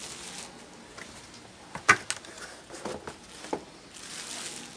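A cardboard shipping box and a bubble-wrapped laptop keyboard being handled: a sharp knock about two seconds in, then a few softer taps and rustles.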